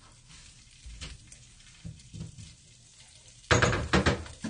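A few soft knocks of bowls being handled, then about three and a half seconds in a loud, short burst of clattering and splashing at a stainless-steel kitchen sink, as water from the tap hits the dishes.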